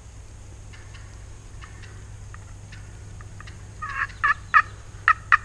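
Wild turkey hen yelping: a few loud short yelps about four seconds in, then a quicker run of yelps near the end.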